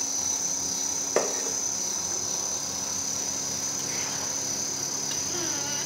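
A steady, high-pitched insect chorus, with a single sharp knock about a second in.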